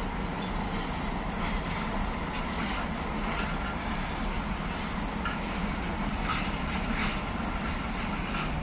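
PKP Cargo electric freight locomotive moving slowly past, giving a steady low hum and rumble, with two short faint squeaks about five and six seconds in.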